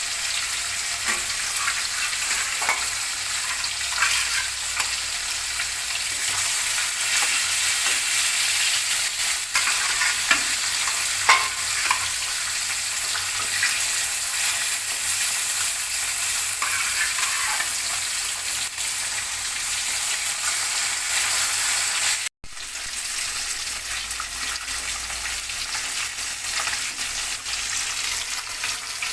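Pieces of rohu fish frying in mustard oil in a kadai: a steady high sizzle with scattered crackles and pops. The sound drops out for an instant about three-quarters of the way through.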